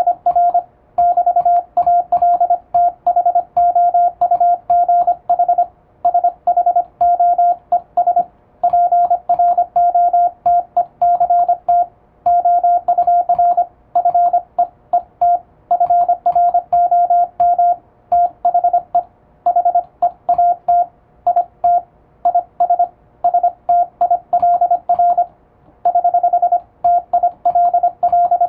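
Morse code sent with an electronic keyer: a single steady beep tone keyed on and off in fast dots and dashes, with short pauses between words.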